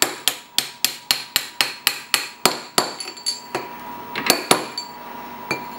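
Hammer tapping a steel driver tube to seat the inner bearing onto the milling-machine spindle shaft: a quick run of ringing metal taps, about four a second, then a few slower, harder strikes near the end.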